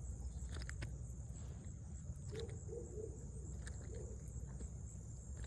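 Steady high insect trill, with a few light clicks of handling noise and a low rumble of wind or handling on the microphone.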